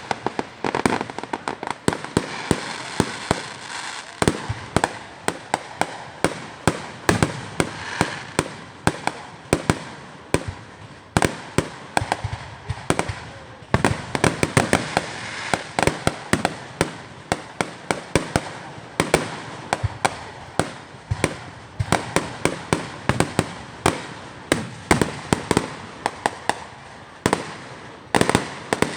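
Fireworks display: a rapid, continuous run of sharp bangs and pops, several a second, over a steady crackle of bursting shells.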